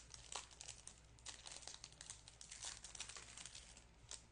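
Foil wrapper of a trading-card pack crinkling and tearing as it is opened: a quick, faint run of crackles that stops about four seconds in.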